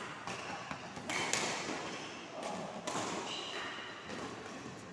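Badminton rally: several sharp racket hits on the shuttlecock, roughly a second apart, with thuds of players' footwork on the court.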